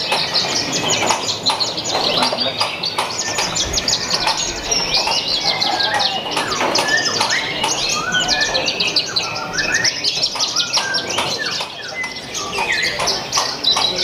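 Several caged Javan bush larks (branjangan) singing at once: a dense, unbroken run of quick, high chirps, trills and short whistles, the phrases of different birds overlapping.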